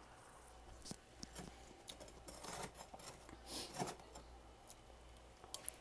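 Crisp crunching of freezer frost in irregular bursts, with a sharp click near the end.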